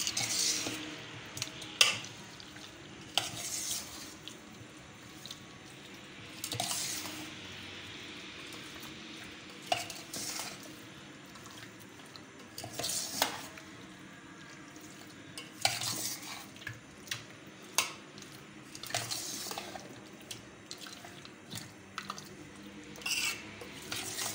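Steel spoon stirring raw chicken pieces through a thick yogurt marinade in a stainless steel bowl, with irregular clinks and scrapes of the spoon against the bowl.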